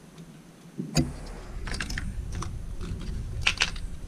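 Batteries being pressed into the plastic grip battery compartment of a Tokyo Marui toy electric airsoft pistol: a sharp click about a second in, then scattered small plastic clicks and rattles as the cells are seated.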